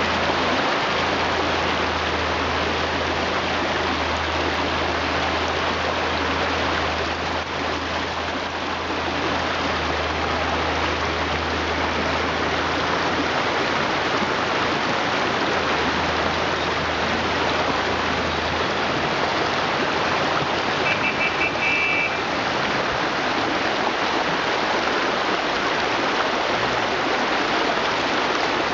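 Shallow river rushing steadily over rocks, with a low rumble underneath for most of the first two-thirds and a brief run of high chirps a little after it stops.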